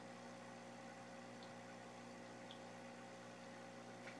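Near silence: a faint steady hum with hiss, and a few tiny faint ticks.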